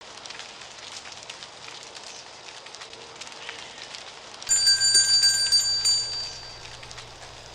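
Falling oak leaves rustling and pattering, many small dry ticks over a steady hiss. About four and a half seconds in, a loud ringing bell-like tone sounds, the loudest thing here, and fades away after about two seconds.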